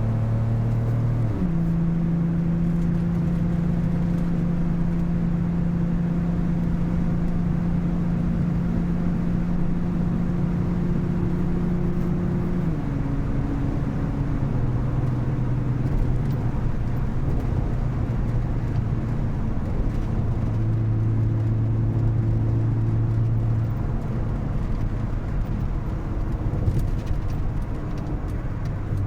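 BMW E30 325i's 2.5-litre straight-six engine running while the car is driven, over a steady rushing noise. The engine note jumps higher about a second and a half in, holds steady, drops about halfway through and shifts again later.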